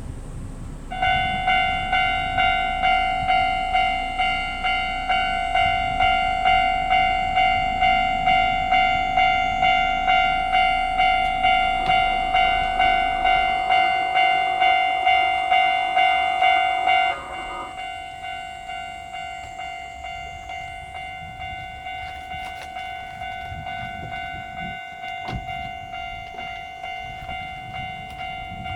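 Japanese level-crossing warning bell starts ringing about a second in, clanging about twice a second and warning of an approaching train. About 17 seconds in it drops suddenly to a quieter level and keeps ringing at the same pace.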